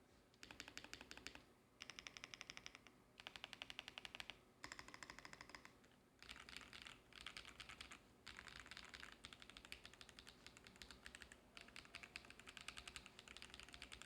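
Typing on a Noir Gear Timeless82 mechanical keyboard with Akko V3 Cream Yellow linear switches and GMK Parcel keycaps: fast runs of keystrokes a second or two long, broken by short pauses.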